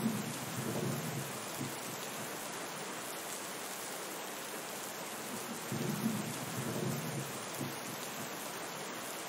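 Steady heavy rain hissing, with two low rolls of thunder: one right at the start and another about six seconds in, each fading after a second or two.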